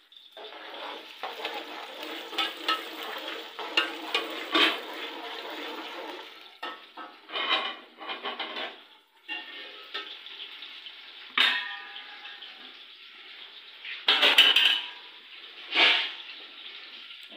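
Kitchen tap water running for about six seconds, then a string of shorter gushes and splashes mixed with pots and dishes clattering.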